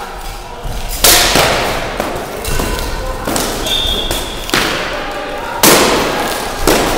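Weapons clashing and striking in a fencing bout: a string of sharp, loud hits, the loudest about a second in and again near the end, with a brief ringing tone in the middle.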